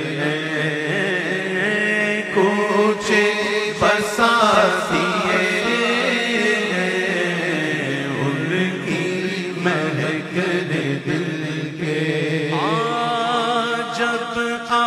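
Devotional Urdu naat chanted by a voice, long drawn-out melodic phrases without clear words over a steady low drone, with a new held note entering near the end.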